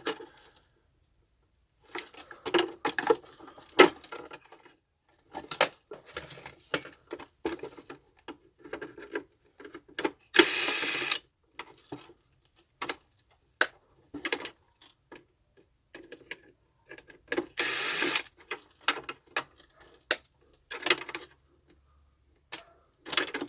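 Plastic and metal parts of a vacuum cleaner being handled and worked apart during disassembly: scattered clicks, knocks and rattles, with two longer rasping noises of about a second each, around ten and eighteen seconds in.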